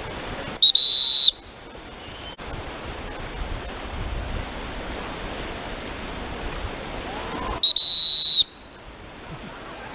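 Two short, loud whistle blasts about seven seconds apart, each opening with a quick chirp, over the steady rush of river rapids. They signal a kayaker's capsize.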